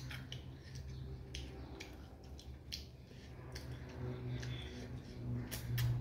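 Wet eating sounds of a person eating by hand: irregular smacks and clicks of chewing, with fingers working food in gravy on a plate. A low hum runs underneath and grows louder near the end.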